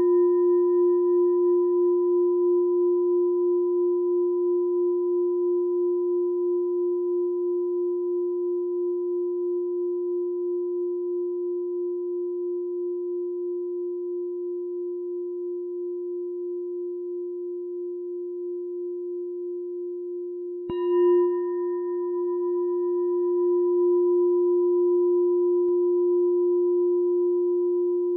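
A meditation bell ringing out and slowly fading, then struck again about 21 seconds in and ringing on. The ring has a slow, regular waver in loudness.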